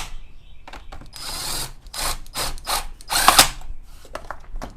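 Cordless drill/driver running in several short bursts with a whine that rises and falls, driving screws into an Echo CS400 chainsaw's housing.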